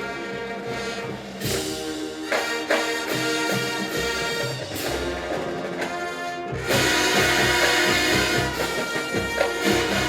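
Drum and bugle corps brass line playing sustained chords over the drumline's strokes, getting louder about two-thirds of the way through.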